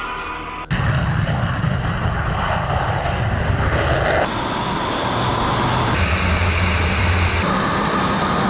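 Twin jet engines of a Sukhoi Su-57 fighter running at high power for takeoff, the noise cutting in suddenly about a second in and then holding loud and steady, its tone shifting a few times.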